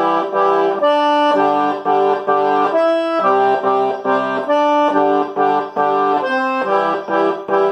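Giulietti piano accordion playing a forró/xote accompaniment exercise in C major. A single longer note alternates with three short, evenly spaced chord stabs, repeating in a steady rhythm.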